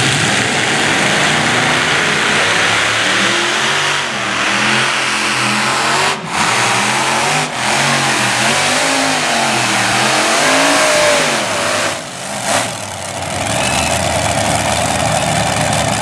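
Supercharged modified pulling tractor running at full throttle under load as it drags the sled, its engine pitch rising and falling. There are two brief cuts about six and seven and a half seconds in. About twelve seconds in it drops off the throttle at the end of the pull and runs on at a lower, rougher level.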